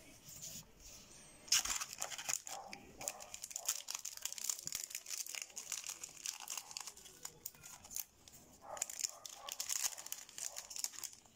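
Foil Yu-Gi-Oh booster pack wrapper being torn open and crinkled in the hands. The crackling starts suddenly about a second and a half in, breaks off briefly near the two-thirds mark, then resumes.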